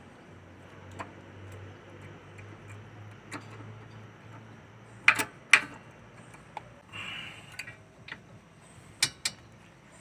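Hard clicks and clacks of new rear brake pads being fitted into the disc brake caliper bracket: a few light ticks, two loud clacks about halfway through, a short scrape, then two more loud clacks near the end.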